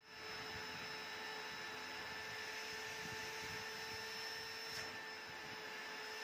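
Small electric motor running steadily, a constant whine over an even hiss.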